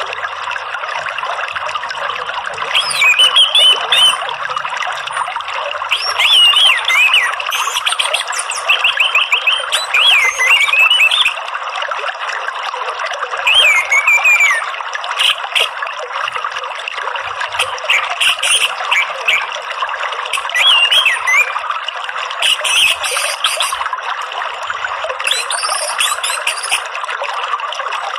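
Orange-headed thrush song: short, quick whistled phrases sliding up and down, coming every few seconds, with some higher, thinner bursts later on. Under it runs a steady sound of flowing water.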